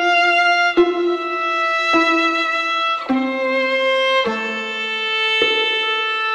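Instrumental background music: a slow melody of held notes, each changing to the next about once a second.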